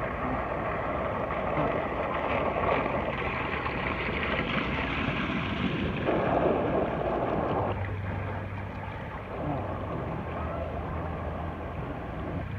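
Rushing, churning water of a water-park river-rapids ride, loudest in a surge about six seconds in. A steady low hum joins about two-thirds of the way through.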